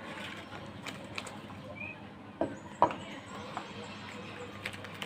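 Soap packaging being handled and opened: scattered light crackling and clicking, with a sharper knock nearly three seconds in.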